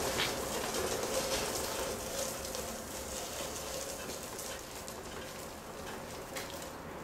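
Light rustling and small knocks of objects being handled at a workbench, over steady room noise. The handling sounds are busiest for the first couple of seconds, then thin out.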